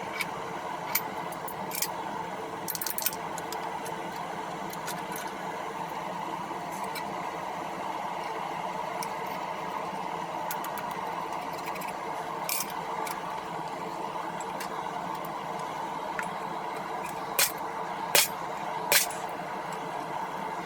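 A forge running with a steady roar while steel heats in it. Short sharp knocks come now and then, a few in the first three seconds and three louder ones near the end.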